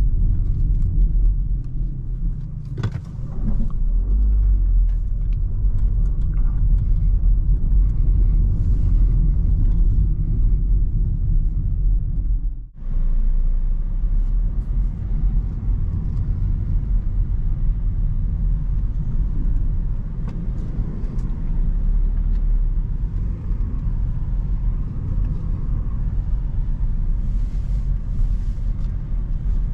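Steady low rumble inside the cabin of a 2019 BMW 2 Series Active Tourer, a 1.5-litre petrol car with a seven-speed dual-clutch gearbox, driving at city speed: engine and tyre noise. The sound cuts out for a moment about halfway through.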